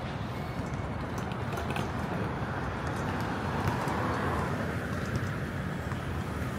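City street traffic noise, with a vehicle passing and swelling louder about halfway through.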